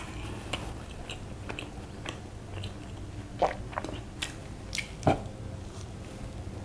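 Close-miked mouth sounds of someone eating soft dhokla: wet chewing and small lip and tongue clicks, with two louder smacks about three and a half and five seconds in.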